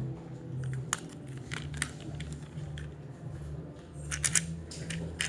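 Scattered small clicks and taps of hard plastic parts being handled, a quick run of them about four seconds in, over a steady low hum.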